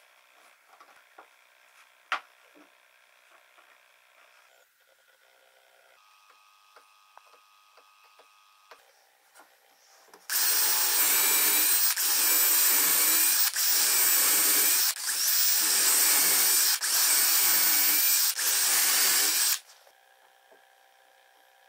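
Handheld power drill boring a row of six holes into the corner of a pine box, in six runs of about a second and a half each, with a brief pause between holes. Before the drilling there are only faint handling clicks, with one sharp click about two seconds in.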